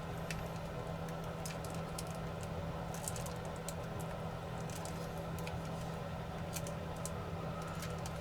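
Small irregular clicks and scratches of a hand tool picking at adhesive tape and plastic inside a drone's body, over a steady hum.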